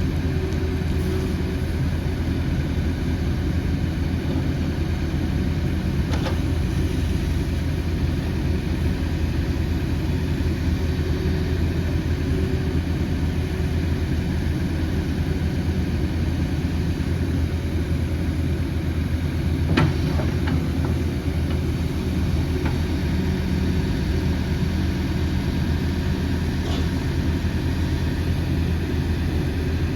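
Sany SY80U midi excavator's diesel engine running steadily at an even speed, with a few brief knocks.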